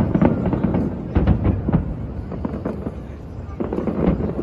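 Fireworks display: aerial shells bursting in a rapid, irregular string of sharp bangs and crackles, several a second, over a continuous low rumble.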